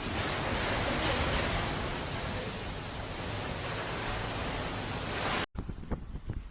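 Steady, even rushing storm noise of wind and rain that cuts off abruptly about five and a half seconds in, then gives way to gusty wind buffeting the microphone.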